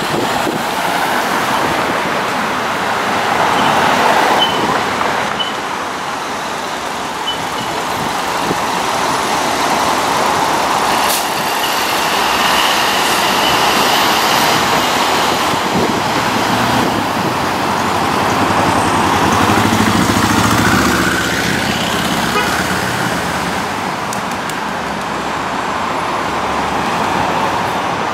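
Street traffic: cars and a truck driving past, the sound swelling twice as vehicles go by, the second time with a deeper engine note.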